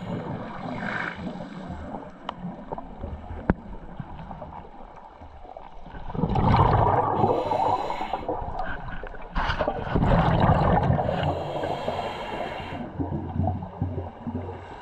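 Scuba diver breathing through a regulator underwater: two loud bursts of exhaled bubbles about six and ten seconds in, each followed by the hiss of an inhalation, over a steady murky underwater background.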